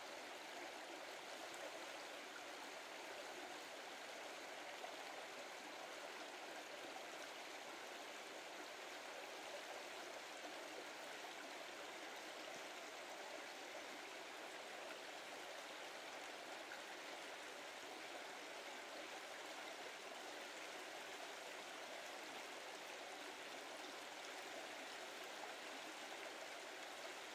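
A brook running: a steady, unbroken rush of flowing water.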